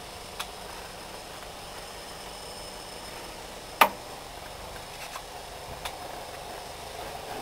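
Steady background hiss with a faint high whine, broken by one sharp knock a little under four seconds in and a few lighter clicks.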